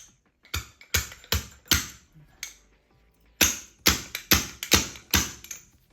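A fork seal driver striking metal on metal as it knocks a new oil seal into the fork leg of a 1980 Honda CB750F. Sharp clacks with a short ring: about five strikes in the first half, then a quicker run of about five near the end.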